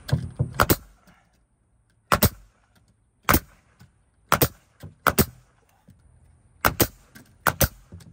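Pneumatic nail gun firing nails through fiber cement frieze board: about ten sharp shots at an uneven pace, some in quick pairs.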